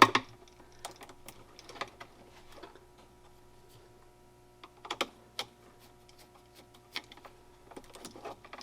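Sparse small clicks and taps of hands working a wall outlet and its wires, with a cluster of sharper clicks about five seconds in, over a faint steady hum.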